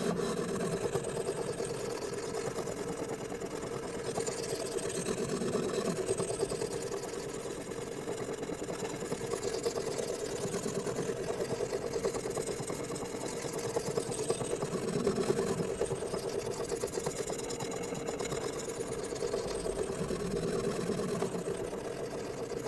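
Coarse 63/50-grit stone on a guided-rod sharpener stroked rapidly back and forth along the steel edge of a convex-ground knife, a steady rhythmic scraping of abrasive on steel. This is the edge bevel being re-profiled.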